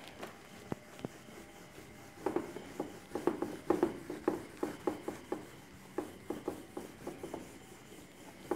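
Handheld eraser rubbing across a whiteboard, wiping off marker writing in a run of quick back-and-forth strokes from about two seconds in, after a few light clicks.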